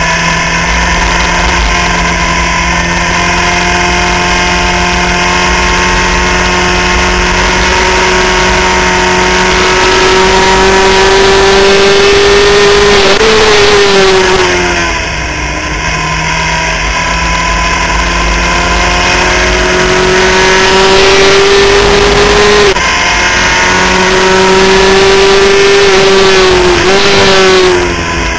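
Skip Barber formula race car's engine heard from on board at high revs, its pitch climbing slowly under power. About halfway through the pitch falls steeply as the car brakes and downshifts, then climbs again, drops sharply once at an upshift, and falls again near the end, over a steady rush of wind and road noise.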